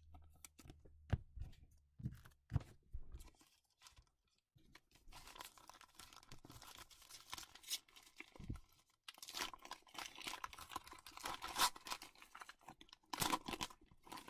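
Light clicks and taps of cards being handled, then a foil Mosaic trading-card pack wrapper being torn open and crinkled in several stretches. The loudest tear comes near the end.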